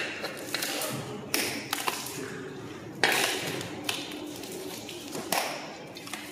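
Tiling work: a few sharp taps and scrapes of tools on ceramic tile and mortar, one every second or two.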